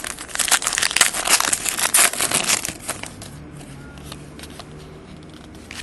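Foil trading-card pack wrapper torn open and crinkled for about three seconds, then handled more quietly.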